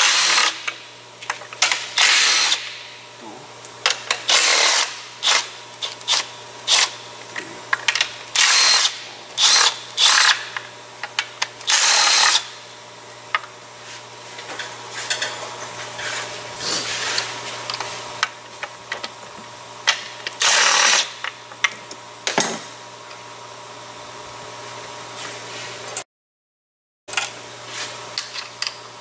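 Ratchet wrench loosening intake manifold bolts on an engine: repeated short runs of ratcheting, each about half a second, with tool clicks and taps between them.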